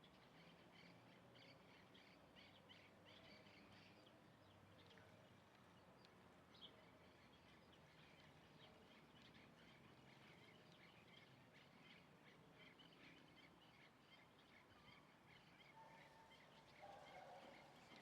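Faint chirping of several small birds, many short calls overlapping, with a lower call near the end.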